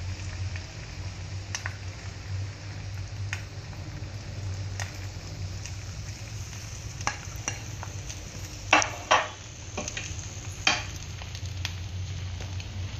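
Beaten egg frying in hot oil in a nonstick pan: a steady sizzle with scattered sharp crackles, the loudest a close pair about nine seconds in and another near eleven seconds. A steady low hum sits underneath.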